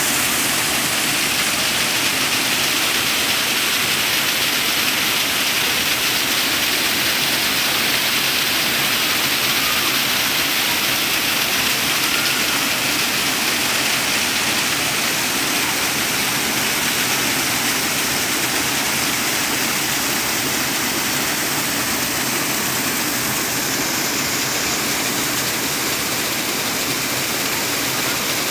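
Several small waterfalls cascading over moss-covered rock tiers: a steady, unbroken rush of falling water.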